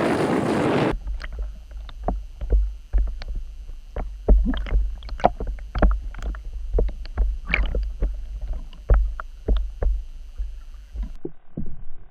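Sound picked up by a submerged camera: a heavy low water rumble with irregular sharp knocks and clicks. It starts abruptly about a second in, when the surface wind-and-wave noise cuts off.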